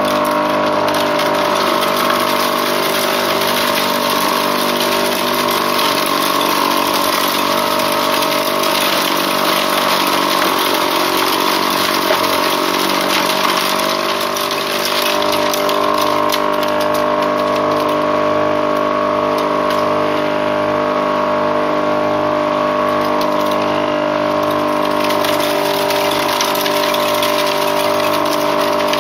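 Homemade wooden corn sheller running steadily under power while shelling corn: a constant motor hum with a rushing noise over it, easing slightly about halfway through.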